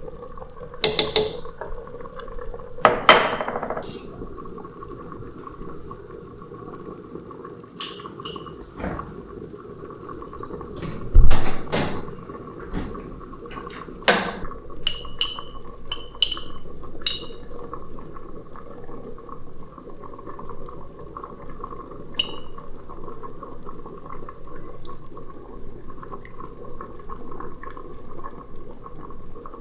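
Home kitchen cooking sounds: scattered clinks and knocks of pots, dishes and metal utensils over a steady hum, with one heavy knock about eleven seconds in.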